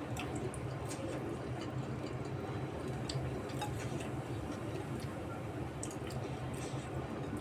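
Close-up eating sounds: wet chewing and mouth clicks, scattered irregularly, over a steady low hum.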